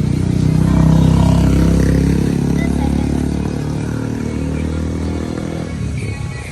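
Motorcycle engine running while under way, growing louder about a second in and then easing off gradually.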